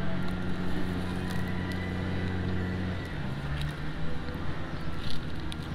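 Steady low engine-like hum over outdoor background noise, its pitch shifting about three seconds in.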